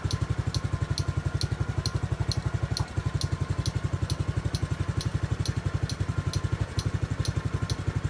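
Honda Super Cub 50 (AA04) single-cylinder four-stroke engine idling steadily with an even low putter. A faint high tick comes about three to four times a second.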